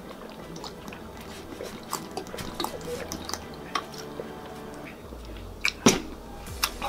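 Juice being gulped straight from a plastic bottle: soft swallowing and sloshing with small scattered clicks. Near the end a single sharp knock as the bottle is set down on the table.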